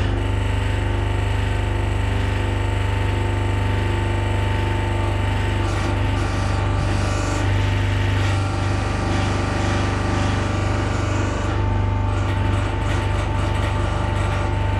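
Wool press hydraulic pump unit running with a steady hum, its note wavering a little as the control valve is worked to run the freshly rebuilt rams up and down and bleed the air out of the system.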